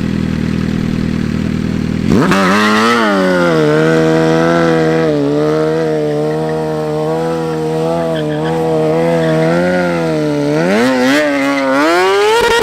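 An engine idling, then revved hard about two seconds in and held steady at high revs, climbing higher again near the end.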